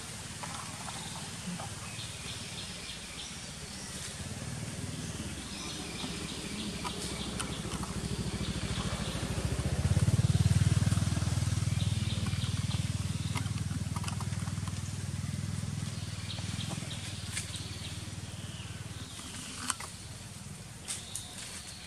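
Outdoor forest ambience with a low rumble that swells to its loudest about halfway through and then fades. Scattered faint high clicks and chirps sit above it, with a few sharper ticks near the end.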